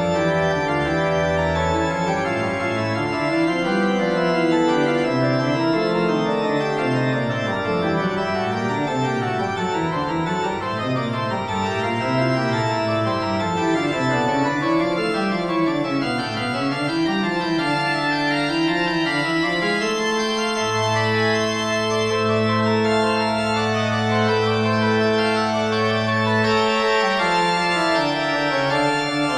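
Organ music: several moving lines weave up and down, then settle on a long held chord over a low bass note about two-thirds of the way through.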